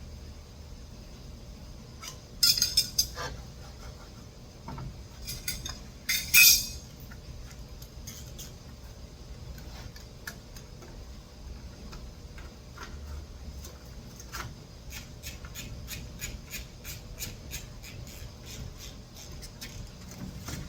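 Metal tools and bicycle parts clinking and jangling, loudest in two short bursts about two and a half and six seconds in. Near the end comes a run of light, evenly spaced ticks, about two to three a second.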